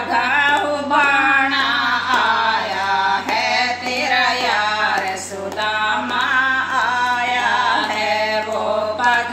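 Women's voices singing a Hindi Krishna bhajan unaccompanied, with hand claps keeping time.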